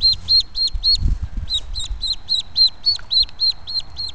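Duckling peeping loudly and without letup, short high peeps about four a second with a brief pause about a second in: the distress call of a duckling set apart from its brood, going through separation anxiety.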